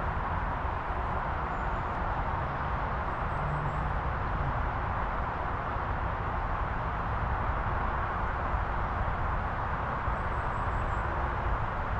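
Steady roar of distant motorway traffic, a constant wash of tyre and engine noise without distinct passes.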